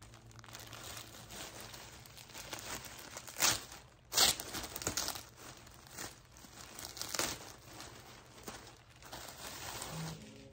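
Packaging crinkling and tearing as a parcel is unpacked by hand, with two louder rips near the middle.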